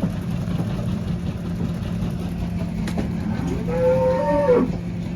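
A dairy cow mooing once, a long call starting about three seconds in, over the steady hum of a barn cleaner running.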